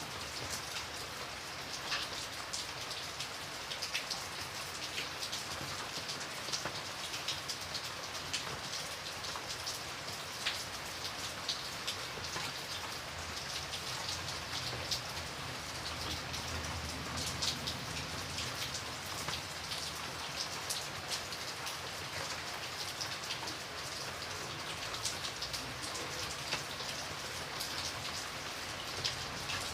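Light rain falling steadily, with many separate drops tapping close by.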